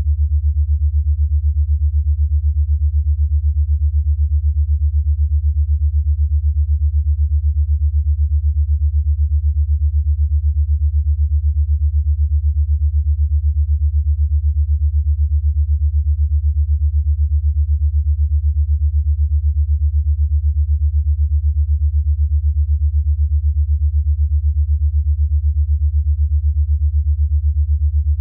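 Low electronic sine tone, well under 100 Hz, pulsing evenly and rapidly at about eight beats a second: an 8 Hz alpha-frequency brainwave-entrainment tone.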